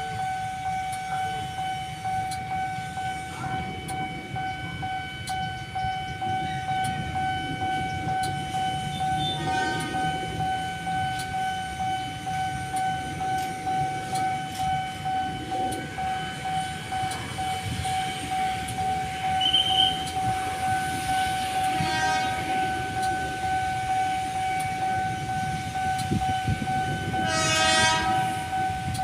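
A level-crossing warning alarm sounds as one steady pulsing tone while a KRL electric commuter train rumbles past. The train's horn sounds briefly three times, about a third of the way in, again about three quarters in, and longest and loudest near the end.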